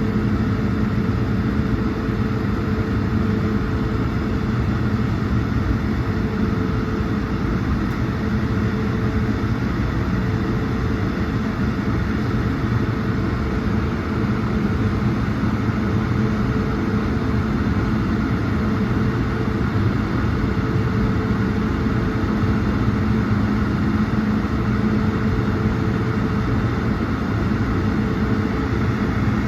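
Steady cabin drone of an Airbus A220-100, its Pratt & Whitney PW1500G geared turbofans and the airflow heard inside the cabin, with a constant low hum and no change in pitch or level.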